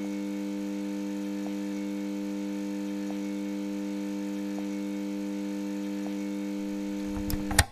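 Steady electrical buzz of a neon sign, a low hum with faint ticks about every second and a half. Near the end it crackles with a few sharp clicks and cuts off.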